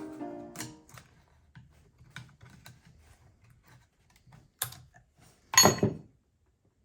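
A short music cue fades out in the first second. Then come light, scattered clicks and taps of small metal transmission parts and tools being handled, a sharp click near the middle, and a louder metallic clatter that rings briefly near the end.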